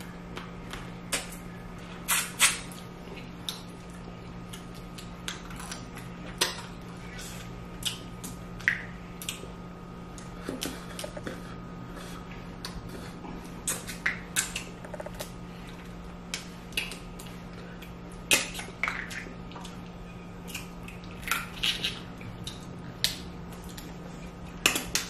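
Snow crab legs being cracked open and eaten close to the microphone: irregular sharp cracks and crunches of shell, a few seconds apart, over a steady low hum.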